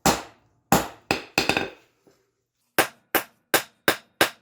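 Hammer blows on a hot railroad spike, rounding out its square shank: a few sharp strikes with short ringing, a pause of about a second, then a steady run of blows at about three a second.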